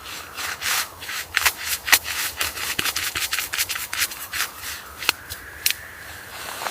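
Rapid, irregular scraping strokes, several a second, over a faint steady howl of wind.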